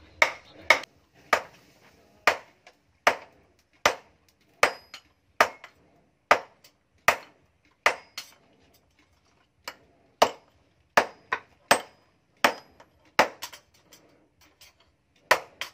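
Hand hammer forging a red-hot steel axe head held in tongs on a post anvil: steady blows a little more than one a second, each a sharp metallic strike, some with a brief high ring. The blows pause for about a second and a half just past the middle.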